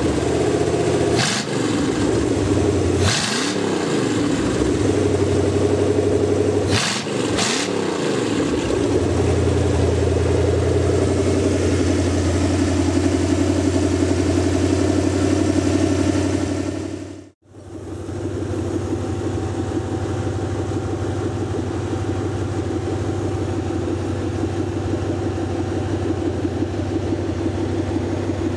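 Rebuilt 368 cubic-inch Lincoln Y-block V8 running on an engine run stand, its throttle blipped by hand about four times in the first eight seconds, then holding a steady speed. After a brief cut it idles smoothly at about 750 rpm, warmed to operating temperature.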